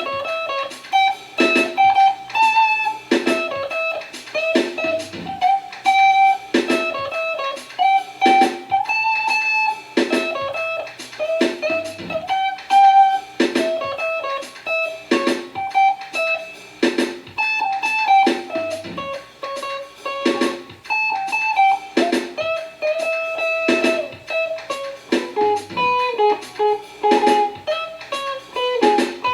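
Jazz-style instrumental music: a pitched melody moving over a beat of regular percussive hits.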